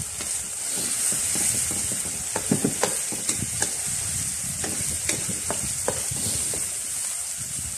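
Chili-shallot-garlic paste and dried shrimp sizzling in hot oil in a metal wok, stirred with a wooden spatula that scrapes and knocks against the pan at irregular moments.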